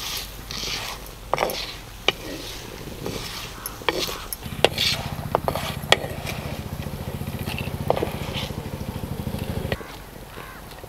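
Wooden spatula stirring and scraping vadiyalu (sun-dried lentil fritters) frying in oil in a pot, with sharp knocks and clicks as the spatula hits the pot and the fried pieces are tipped into a stone bowl. From about four and a half seconds until nearly ten seconds, a small engine runs in the background with a low, fast-pulsing buzz.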